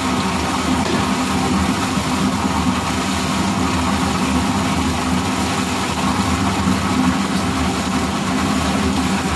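Milking-shed machinery running with a steady hum, unchanging throughout.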